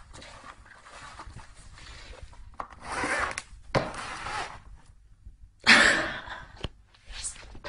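Cardboard box scraping and rustling on a wooden floor as a cat scrambles about inside it. The sound comes in irregular scratchy bursts with a few sharp knocks, the loudest burst about six seconds in.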